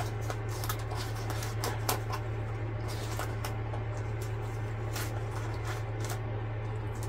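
Thin plastic sheeting and tape crinkling and rustling under the hands in short, scattered crackles, over a steady low hum.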